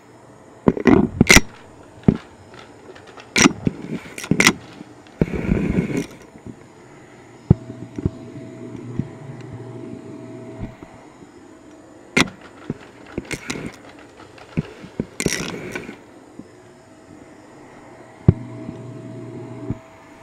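Irregular knocks, clicks and scraping from a vacuum cleaner's metal extension wand being handled and moved along carpet and a baseboard, with two short stretches of low rubbing. There is no steady motor sound.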